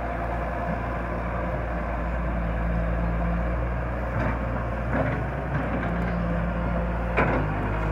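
Hyundai Robex 130-W wheeled excavator's diesel engine running steadily, its note stepping slightly as it swings and works the boom, with a few light clunks and one sharp knock near the end.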